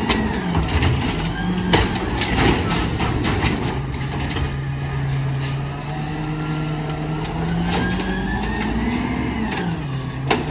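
Peterbilt 320 garbage truck's engine revving up and dropping back, near the start and again near the end, as the Amrep HX-450 automated side-loader arm cycles recycling carts, with a whine rising and falling alongside. In the first few seconds there are bangs and clatter of the cart against the arm and hopper.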